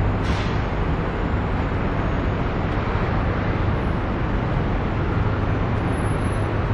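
Steady city street traffic noise, a constant low rumble, with a short hiss just after the start.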